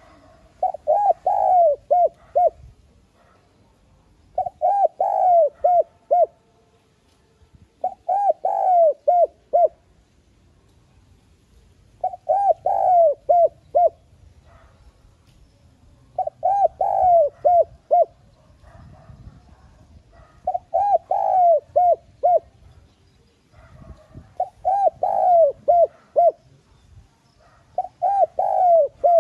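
Spotted dove cooing: a repeated phrase of a few quick coos, given eight times at about four-second intervals.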